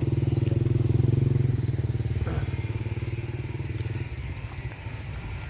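Diesel engine of heavy construction machinery running with a fast, even pulse, loud at first and getting quieter after about four seconds.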